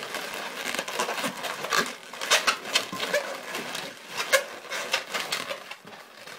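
Latex twisting balloons (260-size) rubbing and squeaking against each other and against the hands as they are folded and wrapped around one another, in a rapid, irregular run of short squeaks and rubs.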